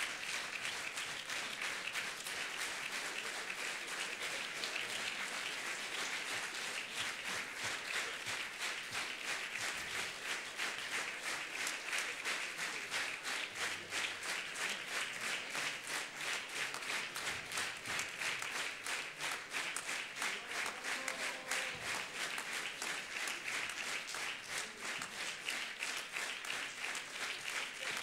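Audience applauding steadily, the clapping becoming more even and rhythmic in the second half.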